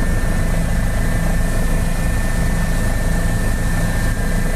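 Steady drone of a small private plane's engines heard from inside the cabin, with a thin, steady high whine over a low hum.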